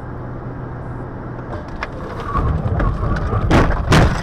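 A car driving, heard from its dashcam: steady engine and road noise. Two loud sharp knocks come about three and a half and four seconds in.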